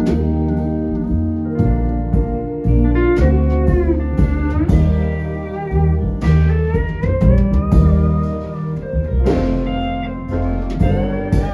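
Live instrumental band: a pedal steel guitar carries the melody with sliding, gliding notes over electric guitar, keyboards, upright bass and drums.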